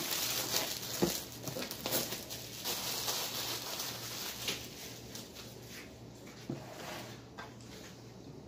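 Plastic wrapping crinkling and rustling as it is handled and pulled off a cardboard box, with a few light knocks of the box on a table. The rustling fades after about four seconds.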